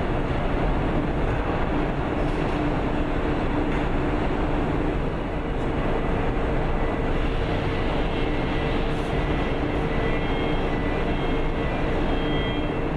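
Steady industrial machinery running: a continuous loud noise with a constant low hum, and a faint high whine joining about halfway through.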